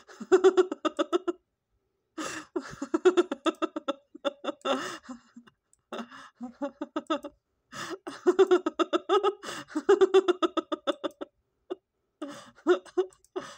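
A person laughing hard in several long bouts of rapid, high-pitched 'ha-ha-ha' pulses.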